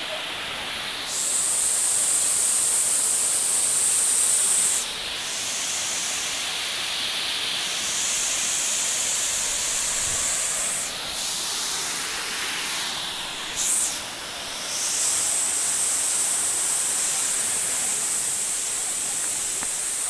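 Waterfall pouring into its plunge pool: a steady rush of falling water that gets louder about a second in, drops back near five seconds, and swells again around fifteen seconds.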